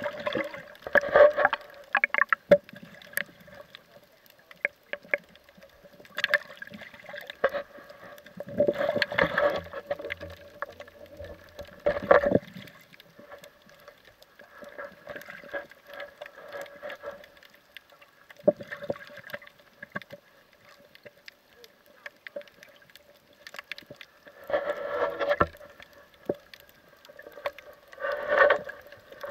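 Water gurgling and sloshing heard through an underwater action-camera housing, in irregular surges every few seconds over a faint steady hum.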